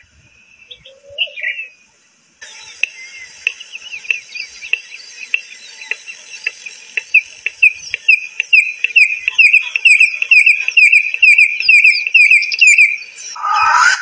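Red-crested korhaan singing: a long series of short whistled notes, at first sparse and then coming faster and louder, stopping about a second before the end. A few faint short bird calls come before it, and a spurfowl's loud harsh crowing breaks in near the end.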